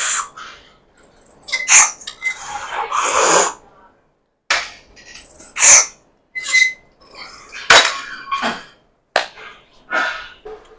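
A lifter's sharp breaths and exhalations during a set of cable tricep pushdowns: about ten short breathy puffs in quick, uneven succession, with a longer breath a couple of seconds in.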